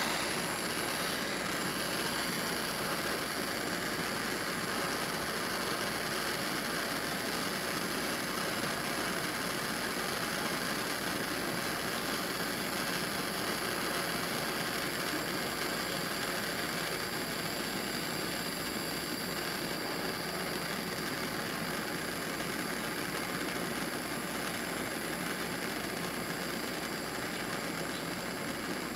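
Small hand-held propane torch burning with a steady, even hiss, its flame held on a copper cable lug to heat it for soldering.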